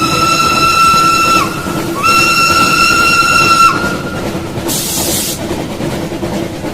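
Train whistle blowing two long steady blasts over the continuous running rumble of a train, with a short hiss about five seconds in.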